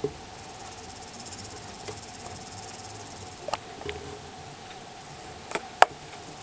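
A mouse moving about a tarantula enclosure on coco-fibre substrate, with a few sharp clicks and taps; the loudest comes near the end. Under it runs a faint steady hiss with a thin high hum.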